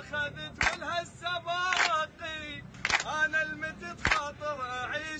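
A group of young men chanting a song in unison, clapping together on the beat about once a second.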